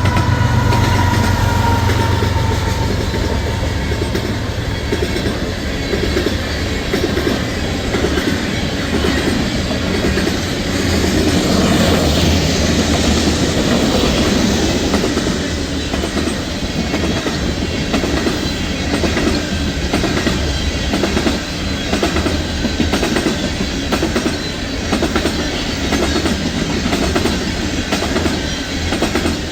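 A freight train passing: a deep rumble from the diesel locomotives at first eases off, then the cars roll by with a steady, rhythmic clickety-clack of wheels over rail joints.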